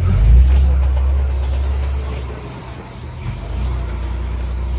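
Off-road vehicle's engine running with a deep rumble while driving over rough ground. It is loudest in the first couple of seconds, eases off around the middle, then picks back up.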